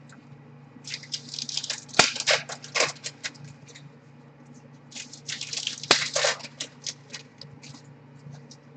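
Trading cards and pack wrappers being handled: two spells of quick light clicks and crackly rustling as cards are slid and flipped through, over a faint steady low hum.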